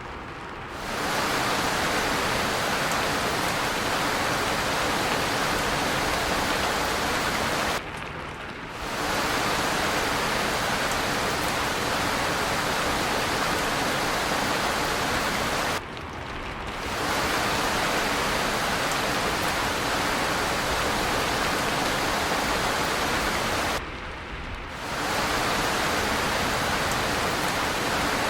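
Steady rain falling, an even, unbroken hiss. About every eight seconds it dips and thins for under a second, then comes back.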